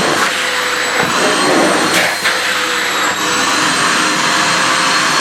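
AEG VX4 bagged canister vacuum cleaner running on a reduced power setting (1.5), with a steady rushing suction noise and a high motor whine. The nozzle briefly scrapes a couple of times about one and two seconds in.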